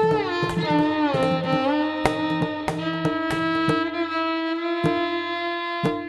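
Background instrumental music: a melody with sliding, bending notes over a low steady tone, with scattered percussive strikes. It fades out near the end.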